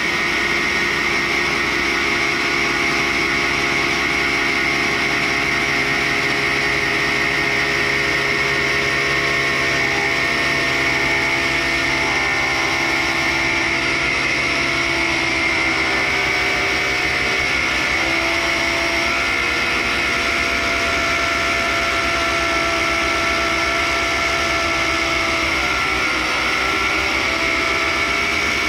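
1942 Cincinnati universal tool and cutter grinder's thin cut-off wheel slowly sawing through raw carbide, with a dust vacuum running alongside. Together they make a steady machine hum with several held tones.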